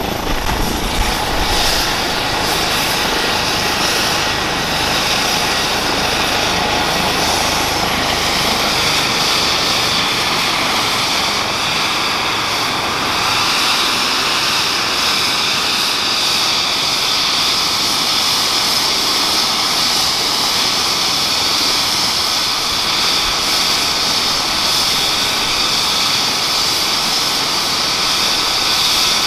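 Airbus Helicopters EC135 P2 air-ambulance helicopter running on the ground after landing, its twin turboshaft engines and main rotor still turning. A steady turbine whine over the rush of the rotor; the low rumble fades in the first couple of seconds and the high whine grows stronger a few seconds later.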